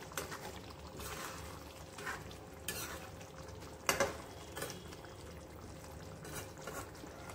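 A metal spoon stirring thick egg curry gravy in a metal kadhai, with irregular scrapes and clinks of spoon on pan, the loudest about four seconds in, over the soft bubbling of the simmering gravy.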